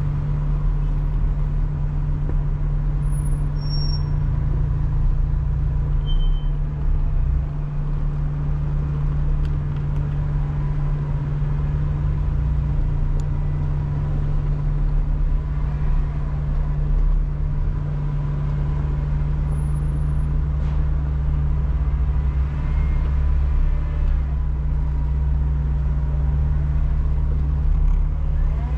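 Off-road vehicle's engine running steadily while driving a trail, a deep, even rumble.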